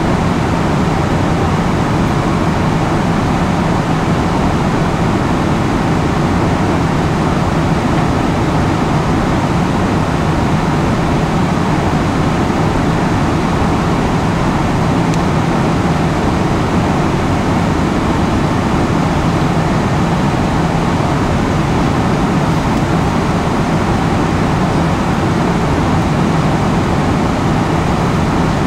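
Steady cabin noise inside a Boeing 777-300ER airliner in flight: an even, unchanging rush of engine and airflow noise, heaviest in the low range.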